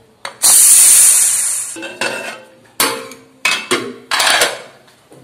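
Leftover steam hissing out of a pressure cooker as its whistle weight is lifted, loud at first and fading away within about a second. It is followed by several metallic clanks and rings as the cooker lid is worked loose and lifted off.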